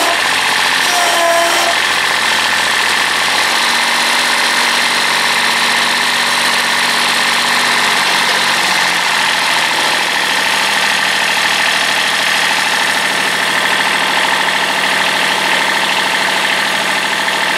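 Kubota compact tractor's diesel engine running steadily.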